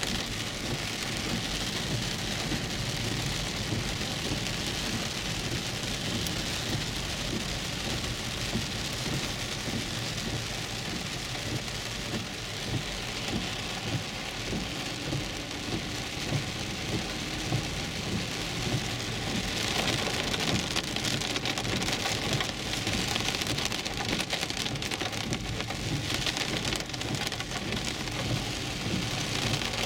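Heavy rain beating on a car's roof and windshield, heard from inside the cabin as it drives on a wet road. The rain gets louder about two-thirds of the way through.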